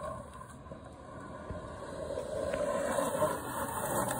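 Powell Peralta G-Slide 59 mm 85a urethane skateboard wheels rolling on asphalt, a steady rolling rumble that grows louder from about a second and a half in as the board approaches.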